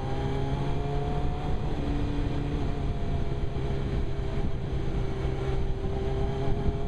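Suzuki GSX-R 1000's inline-four engine running at a steady road speed, heard through a helmet-mounted camera over a haze of wind and road noise.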